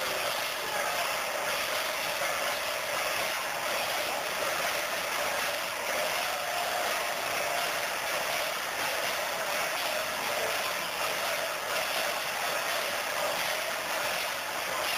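Steady, loud din of a packed festival crowd in the procession, a dense mass of noise with no words standing out.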